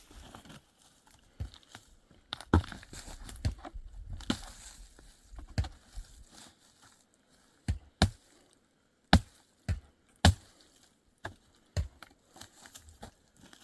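Dry wood being broken up by hand or blade: about a dozen sharp, irregular cracks and knocks with short pauses between them.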